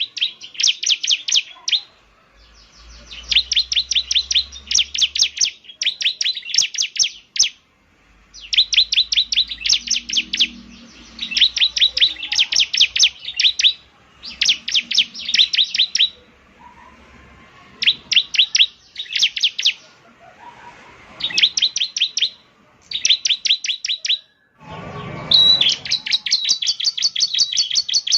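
Bar-winged prinia (ciblek) singing: short bursts of fast, high, repeated chipping notes, each a second or two long with brief pauses between them, then a longer unbroken run near the end. It is a lively 'gacor' song used as a lure to set another ciblek singing.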